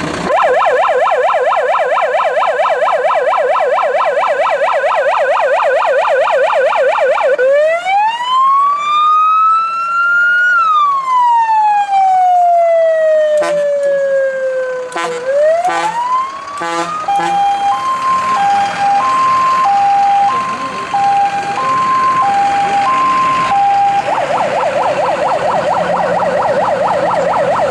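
Fire engine's electronic siren switching through its tones. First a rapid warbling yelp, then one slow rising-and-falling wail, a few short blips, an alternating high-low two-tone, and about three seconds from the end the fast yelp again.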